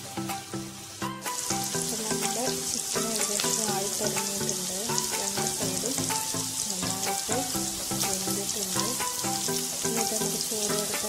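Masala-coated chicken pieces deep-frying in hot oil in a wok: a steady sizzle with crackling, louder from about a second in. Background music with a melody plays underneath.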